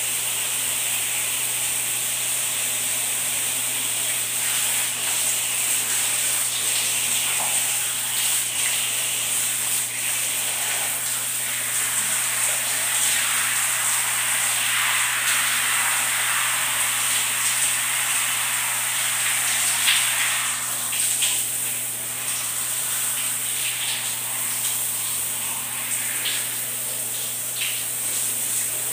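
Shower running: a steady hiss of water spraying from the shower head onto a person and the tiled floor, with a brief louder splash about two-thirds through.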